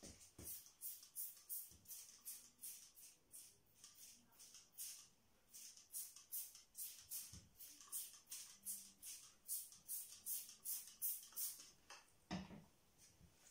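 Hand-held spray bottle pumped quickly, about three short hisses a second, misting the cement-coated cloth. The spraying stops near the end, followed by a soft knock.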